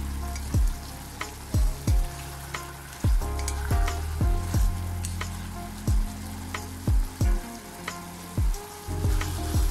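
Pork belly sizzling as it stir-fries in a stainless steel pot, with wooden chopsticks stirring and clicking against the pot. Under it runs background music with a low bass line, its deep, irregular thumps the loudest sounds.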